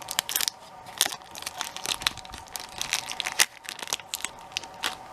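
Tape being peeled off packaging: a run of irregular crackles and crinkles as it pulls free.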